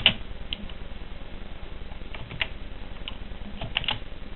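Computer keyboard keys clicking in slow, irregular keystrokes as text is typed, a pair of louder clicks at the start and the rest scattered singly or in small clusters.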